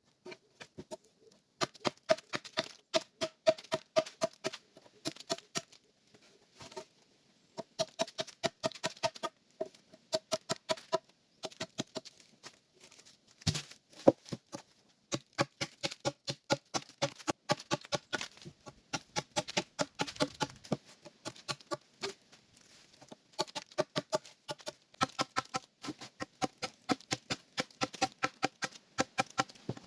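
Rapid runs of tool strikes on wood, about four a second with short pauses between runs, each strike with a short ringing tone. One louder crack comes about halfway through.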